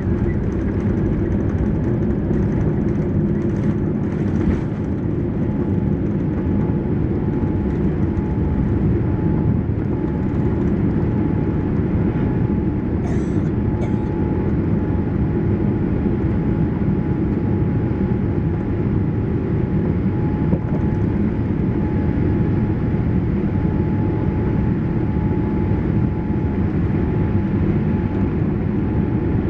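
Steady cabin rumble inside a Boeing 787-8 powered by Rolls-Royce Trent 1000 engines: engine and airflow noise, mostly low, with a faint steady tone above it. Two faint clicks come about halfway through.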